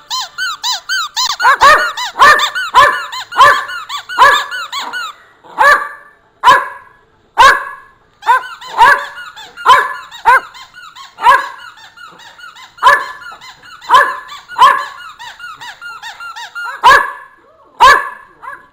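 A dog's plastic squeaky chicken toy squeaked over and over as the dog chews it. Each squeak rises and falls in pitch. They come in a fast, dense run for the first few seconds, then settle into separate squeezes about once a second.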